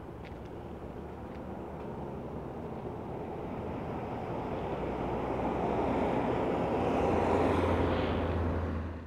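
Steady road and wind noise from a moving car, with a low engine hum. The noise swells as two oncoming cars pass close by near the end, then cuts off suddenly.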